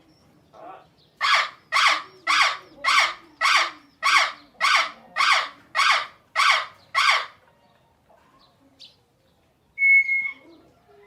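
Parrot calling in a fast, even series of about eleven harsh squawks, roughly two a second, then a single short whistle near the end.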